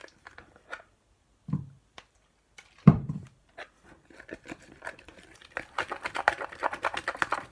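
Sticky clear glue slime being stirred with a wooden stick in a plastic tub, making wet clicking and crackling that builds up over the last few seconds. A soft knock comes about a second and a half in, and a louder thump just before three seconds.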